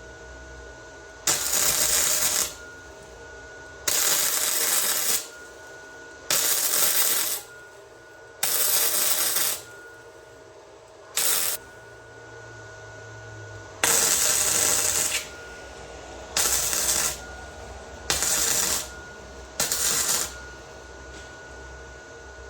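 Wire-feed MIG welder laying short tack welds: nine separate bursts of arc noise, each roughly half a second to a second and a half long, with short pauses between. A faint steady high tone runs under the pauses.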